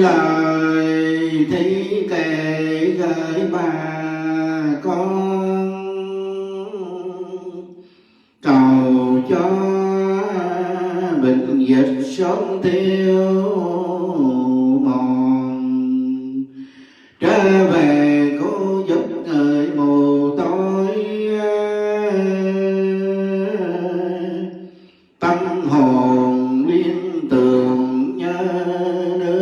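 Melodic Buddhist chanting, sung in long phrases of about eight seconds each with brief breaks between them.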